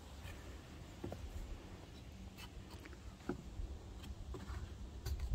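Footsteps on wooden stair treads: scattered light knocks and scuffs at an uneven pace over a low steady rumble.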